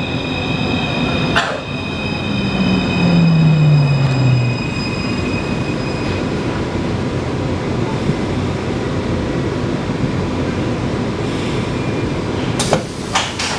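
Taipei Metro C341 retrofitted train's traction inverter whining as the train slows into a station, over rumbling running noise. Several high steady tones fade out within the first six seconds, and a louder low tone slides down in pitch about two to four seconds in. This is the inverter noise the uploader calls abnormal. A few sharp clicks come near the end.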